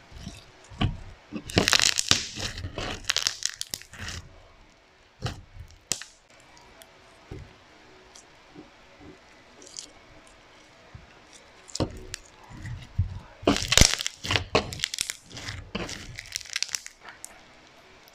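Slime with foam beads being squeezed and pressed by hand, giving crackling, crunchy pops. There are two dense bouts, one a couple of seconds in and a longer one from about twelve seconds, with a few scattered pops between them.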